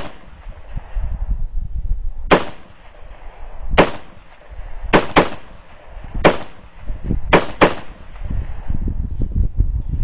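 AR-15 rifle with a 20-inch Colt HBAR barrel firing about seven semi-automatic shots of .223/5.56 at an uneven pace, including two quick pairs, and cycling without a stoppage from an old GI magazine.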